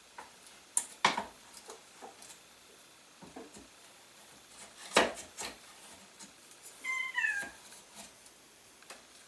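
Scattered sharp knocks and clicks of hand tools working the glued wooden SKS stock, the loudest about five seconds in. About seven seconds in comes a short meow-like cry that drops in pitch at its end.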